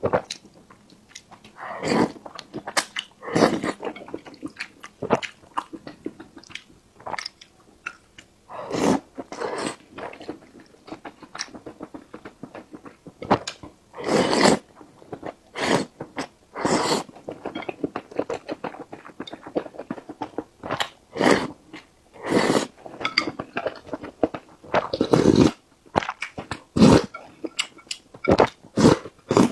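Close-miked sounds of a person eating: chewing and biting, with many short, irregular mouth clicks and louder strokes.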